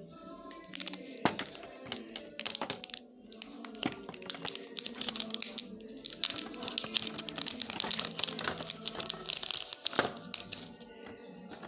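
Rapid clicks and crinkles from hands handling the phone's box and packaging, over background music. The clicking starts about a second in and stops shortly before the end.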